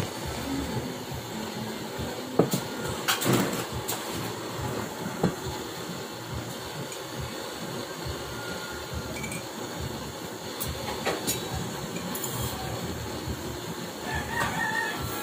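Gas torch flame burning with a steady rushing hiss, over which a few sharp clicks and taps of metal tools and sheet metal being handled sound at scattered moments.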